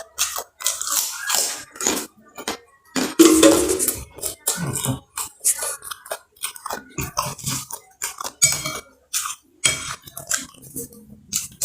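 Close-up crunching and chewing of kerupuk crackers, in quick irregular bites, with clinks of cutlery on a plate.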